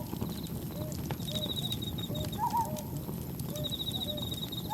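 Layered night soundscape: crickets chirping in short pulsed trills, a campfire crackling with small sharp pops, and a low steady rush of wind and waves underneath. Short lower calls of another animal repeat about twice a second, with a brighter double call about two and a half seconds in.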